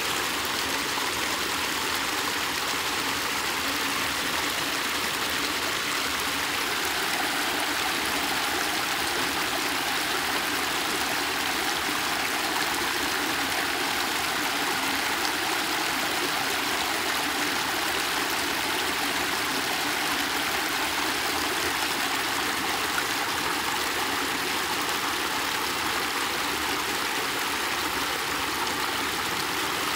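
Muddy water rushing out of a concrete culvert and pouring over a low concrete ledge: a steady, churning rush of water.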